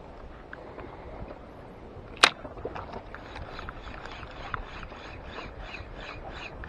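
Spinning reel being cranked to retrieve a jig: one sharp click about two seconds in, then steady rapid ticking of the reel, about four to five ticks a second, over a low wash of wind and water.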